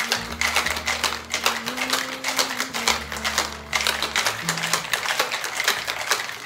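Cocktail shaker being shaken hard, ice rattling inside in a fast, steady clatter. Background music plays underneath.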